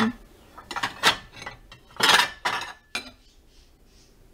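Ceramic plates clinking and scraping as a small plate is pulled off a stack in a kitchen cupboard: a few sharp knocks, then one louder clatter about two seconds in.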